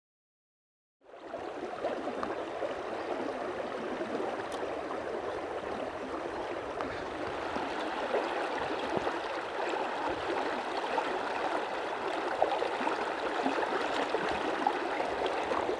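Shallow river current flowing steadily, setting in after about a second of silence.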